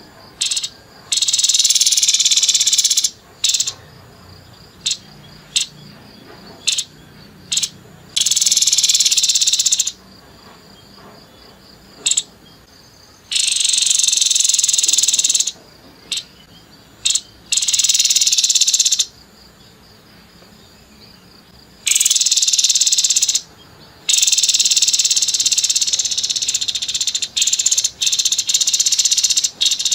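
Grey-headed babbler giving harsh, rapid rattling bursts of a second or two each, with short sharp single notes in the gaps between them.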